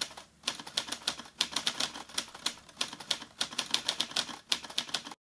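Typewriter keys being struck in a fast, uneven run, several clacks a second, stopping abruptly near the end.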